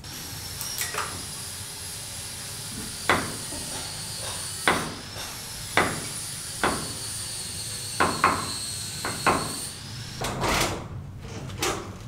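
Hammer driving a wood chisel into a timber beam: about eight sharp knocks at uneven intervals, some in quick pairs.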